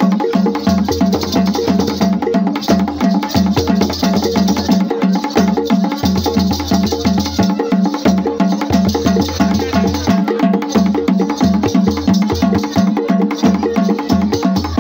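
Traditional Igbo dance music: drums and rattles playing a fast, steady beat.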